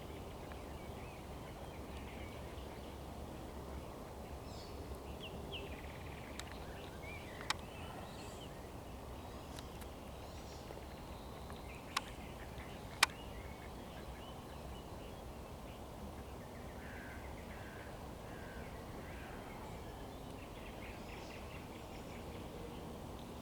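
Birds singing and chirping in short scattered phrases over a steady low background rumble. Three sharp clicks come about seven and a half, twelve and thirteen seconds in.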